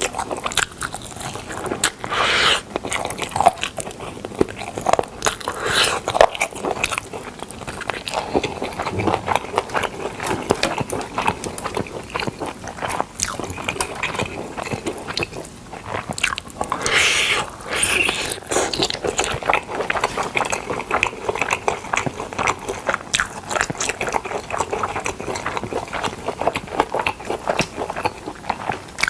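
Close-miked biting and chewing of smoked chicken: a dense, irregular run of short mouth clicks and smacks.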